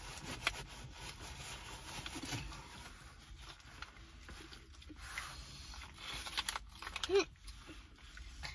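Soft crinkling and rustling of a plastic juice pouch and a plastic bag being handled, with many small clicks and a brief pitched sound about seven seconds in.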